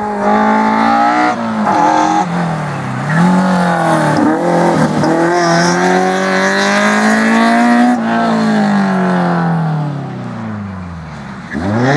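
Toyota AE86 Sprinter Trueno's 4A-GE four-cylinder engine revving hard under throttle: the pitch dips and climbs twice early on, rises to its highest point about two-thirds through, then falls steadily near the end.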